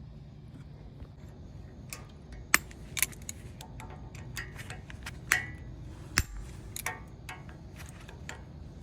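Scattered sharp metallic clicks and knocks of a pry bar working a truck's disc brake caliper and pads loose, the loudest about two and a half, five and six seconds in, over a steady low hum.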